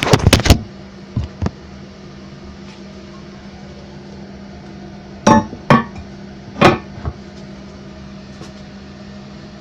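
The porcelain tank lid of a 1995 Mansfield Alto toilet clinking and knocking against the tank as it is handled and set back on: a quick cluster of hard knocks at the start, two lighter taps a second later, then a few more knocks around five to seven seconds in.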